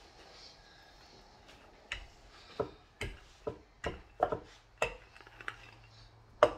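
Wooden rolling pin knocking against a wooden butcher-block board while rolling out rye dough: a run of sharp wooden knocks, roughly two a second and a little uneven, starting about two seconds in, the loudest near the end.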